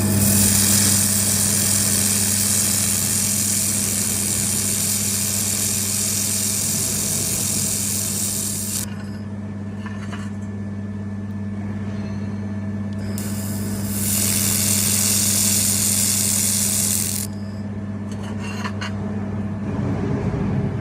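Laser welding machine running with a steady low hum, overlaid by two long stretches of loud hissing, the first about nine seconds and the second about four, with a few faint clicks in the gap between them.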